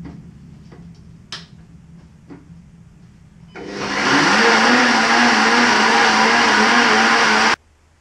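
Countertop blender blending soaked canary seeds with water into seed milk. After a few light knocks, the motor starts about halfway in, spins up, runs steadily for about four seconds and cuts off suddenly.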